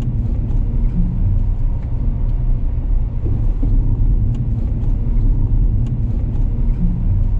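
Car driving along a rough stretch of road: a steady low rumble of tyres and engine, with a few faint clicks.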